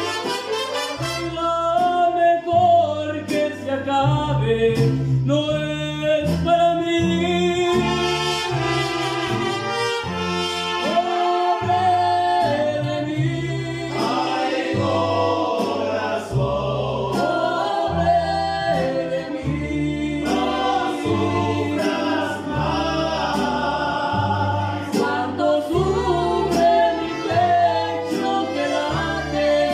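Mariachi band playing live, with trumpets, violins, a guitarrón plucking the bass line and guitars strumming, and a voice singing over the ensemble.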